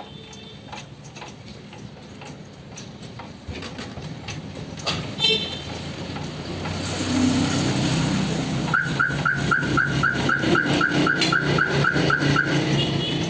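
Repair-shop machinery noise: a low mechanical hum builds from about seven seconds in. Near the end a high chirp repeats about four times a second for nearly four seconds, with sharp clicks, after a single knock about five seconds in.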